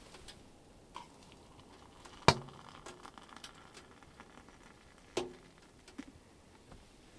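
Sharp clicks and a knock from a stainless steel kettle being handled and tipped to pour tea into a plastic mug. The loudest click comes a little over two seconds in, and another near five seconds.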